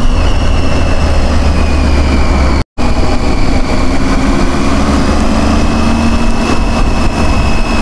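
Triumph Tiger 800's three-cylinder engine running at a steady pitch under light, even throttle while the bike is ridden, over a heavy low wind rumble. The sound cuts out for a split second about a third of the way in, then carries on the same.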